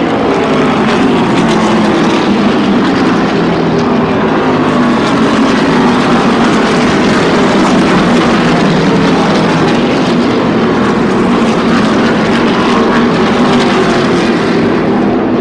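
NASCAR Xfinity Series stock cars' V8 engines running around the oval: a loud, continuous drone of several engines, their notes sliding up and down as cars pass.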